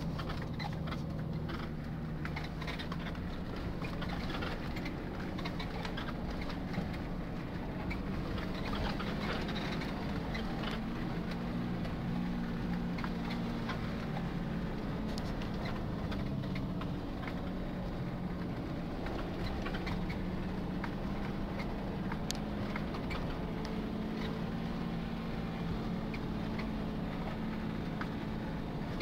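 Nissan Patrol 4x4's engine running steadily at low speed while driving off-road through grass, with frequent small clicks and rattles over the hum.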